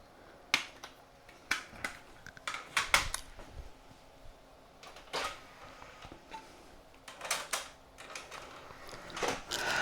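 Scattered light clicks and plastic taps of hands handling a diskette and its packaging, a few seconds apart, over a faint steady hum.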